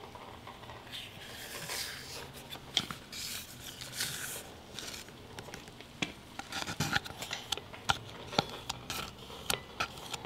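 Wooden paint stir stick scraping thick primer out of a plastic cup into a glass mason jar: soft rubbing and scraping strokes, with several light knocks scattered through, the loudest in the second half.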